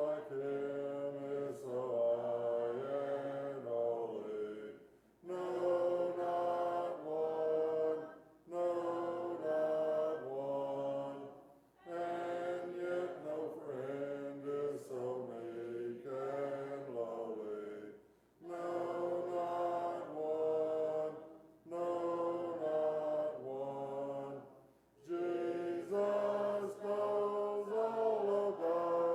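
Congregation singing a hymn a cappella in several harmony parts, unaccompanied by any instrument, in sung phrases broken by short pauses for breath.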